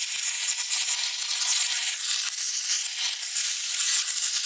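A steady hiss.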